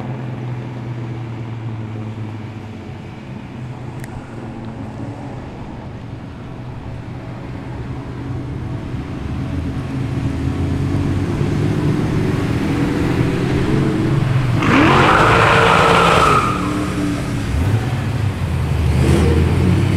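Modified street cars' engines running as they drive out in a line, with a steady low engine note; about fifteen seconds in one car revs hard as it pulls away, and another revs up near the end.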